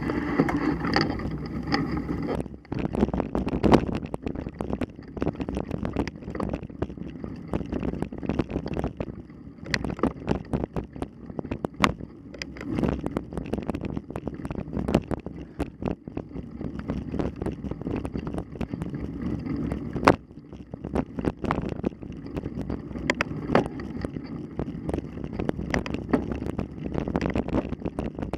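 Mountain bike ridden over rough ground, heard from a camera mounted on it: a steady rush of wind on the microphone with frequent sharp rattles and knocks.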